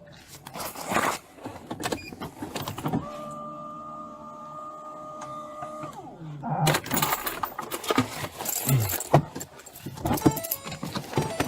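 Rustling and clicking handling noise, with a steady electric motor hum from about three seconds in that lasts about three seconds and winds down as it stops.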